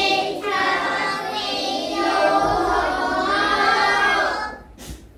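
A class of young children singing together in unison, in long held phrases that stop about four and a half seconds in.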